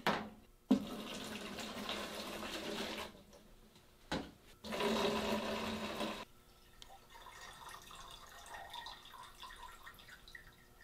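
Ferric chloride etchant being poured from a bottle into a container, in two pours of about two and a half seconds and a second and a half, with a short knock between them.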